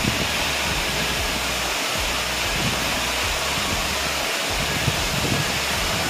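Waterfall pouring into a lake: a steady rush of falling water, with some low rumble underneath.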